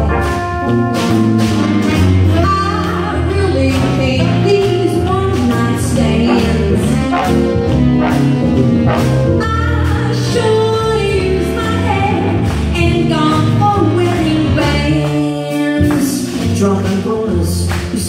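Live big band playing a swinging jazz number: brass and saxophones over bass and drums, with a woman singing at the microphone in places. The low end drops out for a moment about three-quarters of the way through.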